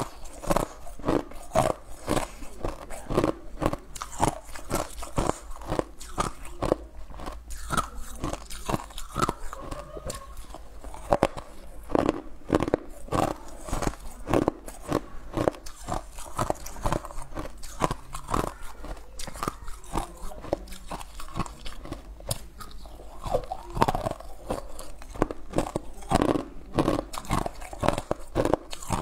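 Ice being crunched and chewed between the teeth close to a clip-on microphone: a quick, uneven run of sharp crunches, about two or three a second.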